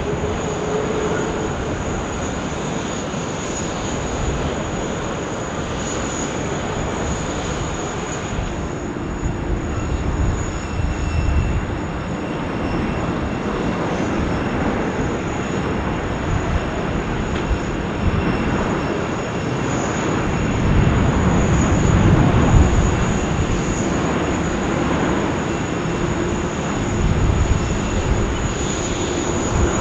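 Wide-body jet airliners' engines running as they come in to land, a continuous jet noise with a faint high whine. Around two-thirds of the way through the noise swells louder, then eases.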